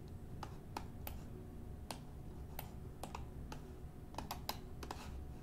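Faint, irregular clicking of keys being typed on a computer keyboard: about fifteen separate taps, unevenly spaced, a little closer together near the end.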